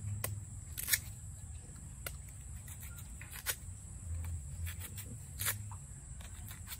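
A kitchen knife slicing through a firm peeled mango, giving a few short crisp cuts a second or two apart, over a steady high drone of insects.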